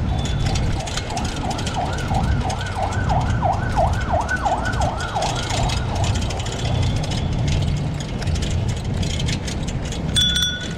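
Emergency vehicle siren on a nearby road, a quick rising-and-falling yelp about twice a second, growing louder to a peak midway and then fading away, over the steady low rumble of wind and riding noise. A brief ringing tone sounds near the end.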